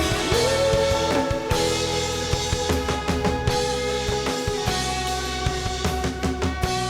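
Live worship band playing an instrumental passage: drum kit with steady hits, guitar and held melodic notes, with a note sliding up near the start.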